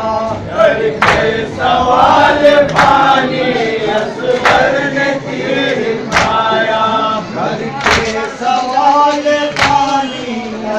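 A group of men chanting a Muharram mourning lament (noha) together, with a sharp unison slap of hands beating on chests (matam) about every 1.7 seconds, six times.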